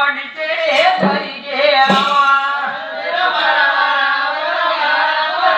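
Group of women singing a Telugu folk devotional song together over a steady held tone, with two sharp percussive strikes about one and two seconds in.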